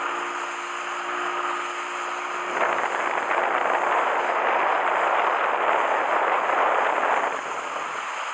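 Fishing boat running at speed: a low engine drone under the rush of wake spray and wind. The rushing grows louder about two and a half seconds in and eases a little near the end.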